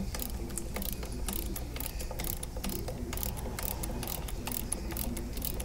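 Small ratchet wrench clicking in quick, uneven strokes while turning the hex stem of an air conditioner's refrigerant service valve. A steady low hum runs underneath.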